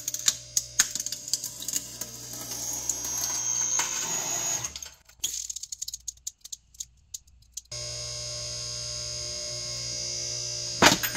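Hydraulic press crushing a hollow plastic toy mushroom, the shell cracking and snapping in a quick run of sharp cracks over a steady pump hum. The hum drops out for a couple of seconds, leaving a few faint crackles, then comes back, and a cluster of sharp cracks comes near the end as the ram meets a small figurine.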